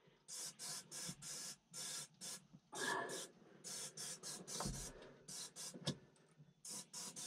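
An aerosol can of Fluid Film lubricant sprayed in a quick series of short hissing bursts, about a dozen, into the seat suspension to stop a squeak.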